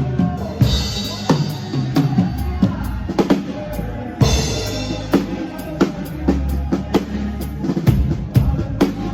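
Live band music led by a drum kit playing a steady beat of kick and snare over a bass line, with cymbal crashes about half a second in and again about four seconds in.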